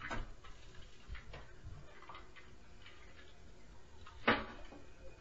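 Scattered knocks and taps at uneven intervals, a sharp one at the start and the loudest about four seconds in: noise from the neighbours' apartment upstairs, heard through the ceiling.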